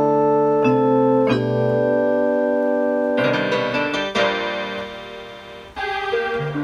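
Casio CTK-240 portable keyboard playing held chords in a piano-like electronic tone. The chords change every second or so, and the sound turns brighter about three seconds in, then dies away slowly before a new chord near the end.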